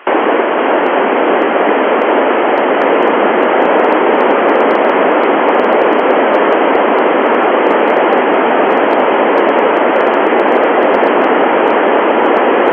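Steady, loud FM receiver hiss from the Icom IC-9700 on the Tevel-7 satellite's 70 cm downlink. The squelch is open and no station is coming through, so the channel is empty.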